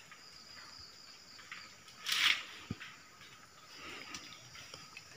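Faint, steady high-pitched chirring of night insects, with a short noise about two seconds in and a fainter one near four seconds.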